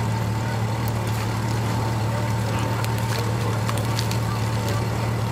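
Steady low hum of an idling engine, with a thin steady whine above it and a few faint clicks.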